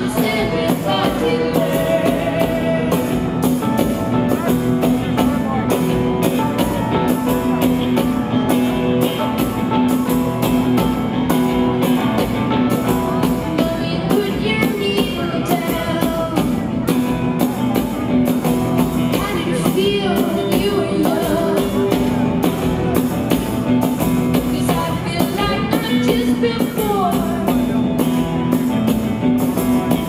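Live band music with a woman singing over drums and keyboards, keeping a steady beat.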